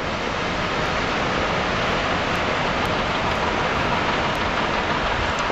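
Steady rushing outdoor noise with no distinct events: a constant hiss and rumble, even in level throughout.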